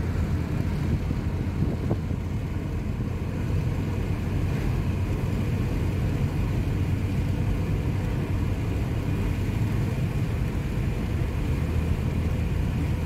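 Steady low rumble of road and engine noise inside a moving car's cabin, at an even level.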